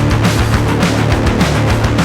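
Loud, driving heavy rock background music with a steady beat and heavy bass.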